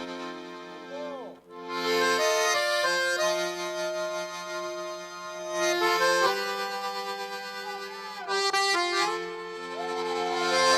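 Accordion (sanfona) playing slow sustained chords, changing chord every few seconds, as the instrumental lead-in to a forró-flavoured samba-enredo.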